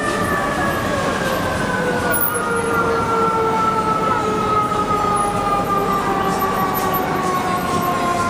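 Fire engine siren sounding one long tone that slides slowly downward in pitch, over the steady noise of busy city street traffic.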